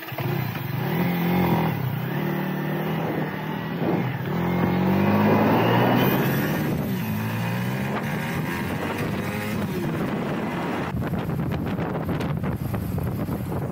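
Yamaha R15 V3's single-cylinder engine pulling away from a standstill and accelerating up through the gears, its pitch rising in each gear and dropping at each shift, then running more steadily at road speed. Wind rushes over the microphone near the end.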